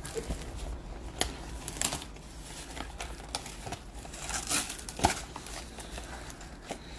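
A jumbo box of baseball cards being opened and unpacked by hand: crinkling and tearing of the packs' wrapping and cardboard, with scattered sharp clicks and knocks.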